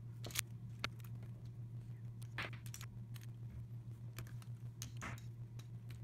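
Plastic Rubik's cube pieces clicking as edge pieces are fitted onto the core to build the white cross: a few scattered sharp clicks over a steady low hum.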